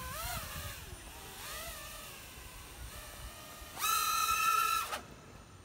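FPV racing quadcopter's electric motors whining, the pitch rising and falling with the throttle, then a louder steady whine for about a second, around four seconds in.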